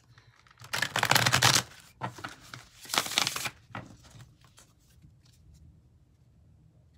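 Tarot deck being shuffled by hand: two quick bursts of rapid card flutter, the first about a second in and the second about three seconds in, then only faint handling of the cards.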